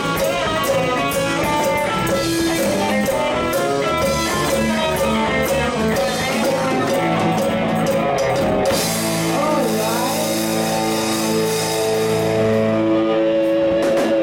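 Live band playing an upbeat country-rock tune on fiddle, electric guitar and drum kit. From about nine seconds in the band holds long sustained notes over a cymbal wash.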